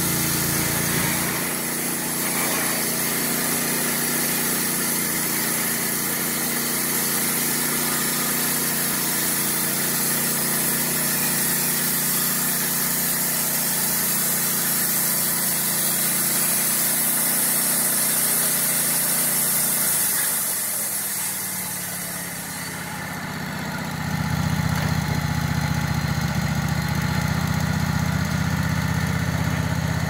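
Gasoline engine of a Wood-Mizer LT15 bandsaw sawmill running steadily. About two-thirds of the way through it dips, then comes back louder with a deeper tone.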